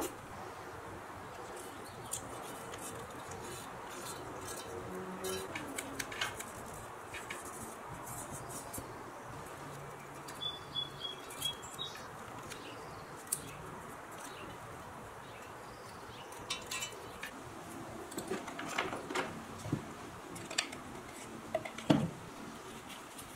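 Light clicks, taps and tape sounds of hands masking a drill press head casting with blue painter's tape on a wooden bench, with a sharper knock near the end.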